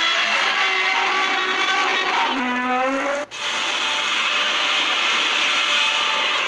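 Harsh, drawn-out monster roar sound effects, in the style of a Godzilla roar: one roar that rises in pitch near its end and cuts off abruptly about three seconds in, then a second long roar that fades away near the end.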